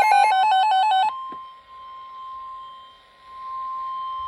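Emergency Alert System alert tones. A harsh, buzzy two-pitch warble switches rapidly back and forth and cuts off about a second in. A steady single-pitch tone then takes over, in the manner of the weather-radio warning alarm tone that comes before a warning message.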